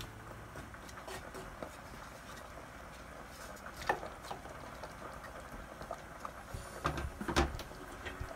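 Wooden spatula stirring chunks of beef, potato and carrot in a pot of stew, with soft scraping and clicks and a few sharper knocks against the pot, about four seconds in and twice around seven seconds in.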